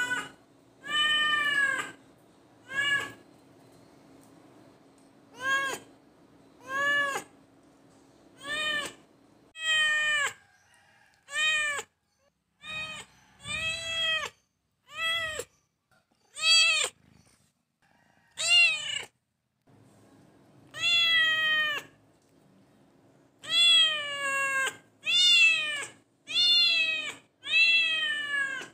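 A kitten mewing over and over: high-pitched calls that rise and fall in pitch, about twenty of them with short pauses between.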